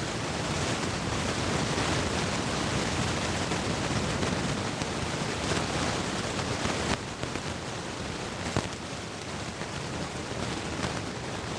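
Steady rushing noise like loud recording hiss, which drops somewhat in level about two-thirds of the way through, with a single sharp click shortly after.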